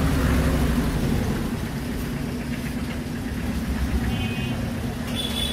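Street traffic noise: a steady low rumble of motor vehicles with an engine running nearby.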